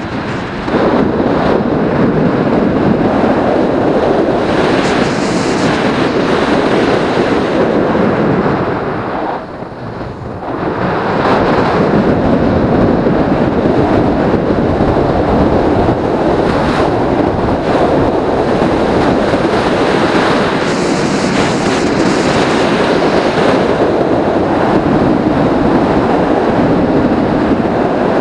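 Wind buffeting an action camera's microphone on a fast e-bike descent: a loud, steady rush that drops briefly about nine seconds in, then comes back.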